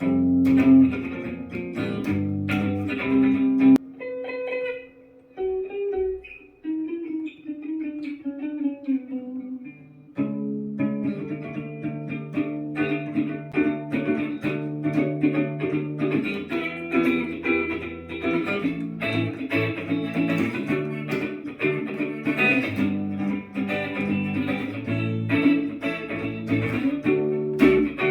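Electric guitar played through a Positive Grid Spark Go pocket amp: a few seconds of chords, a sparse stretch of single ringing notes from about four to ten seconds in, then steady picked playing. Little treble above the upper mids.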